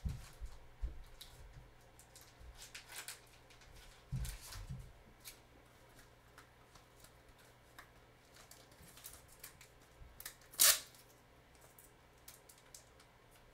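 Trading cards and plastic card sleeves being handled: scattered light clicks and rustles, a couple of soft low bumps about four seconds in, and one louder brief rustle about ten and a half seconds in.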